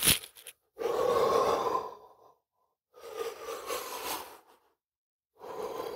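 A man's slow, deep breaths, three in all with quiet gaps between, the first about a second in the loudest. A short click right at the start.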